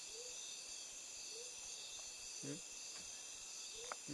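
Steady, high-pitched chorus of rainforest insects, with a few short, faint sounds of a person's voice and a small click near the end.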